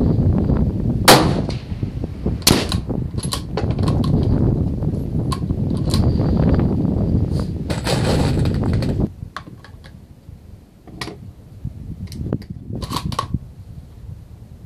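A single loud rifle shot about a second in, from a .223 Remington rifle, heard through heavy wind noise on the microphone. After the wind drops, a few sharp clicks and knocks follow near the end.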